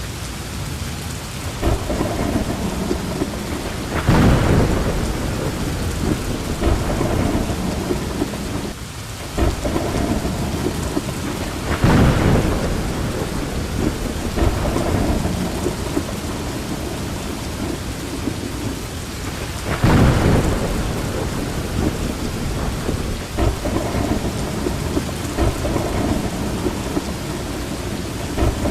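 Steady rain with rolling thunder: a constant hiss of rainfall, with three louder rumbles of thunder roughly eight seconds apart.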